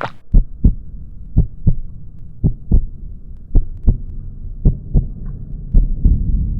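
Heartbeat sound effect: six deep lub-dub double thumps about a second apart, with a low rumble swelling under them near the end.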